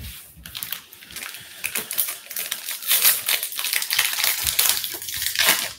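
Foil wrapper of a baseball card pack crinkling and tearing as it is opened by hand: a dense run of crackles that grows louder about halfway through.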